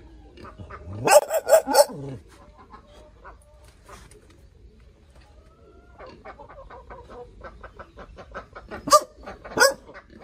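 A caged hunting dog barking: a quick run of four barks about a second in, then two single barks near the end.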